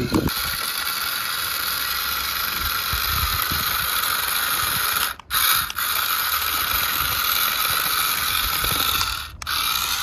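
Remote-control model Swaraj 855 tractor's electric motor and upgraded gearbox whirring steadily as it drives, the sound dropping out briefly twice.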